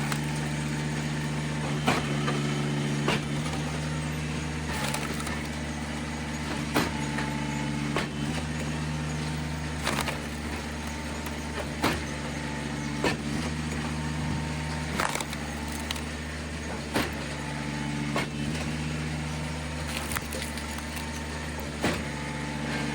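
Eastonmade 37D log splitter's engine running steadily, with a sharp crack or knock every second or two as wet poplar rounds are split.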